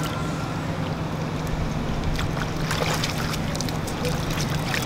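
Light splashing of long-tailed macaques moving about in a shallow muddy puddle, with scattered small clicks and splashes. A steady low hum and wind noise on the microphone run underneath.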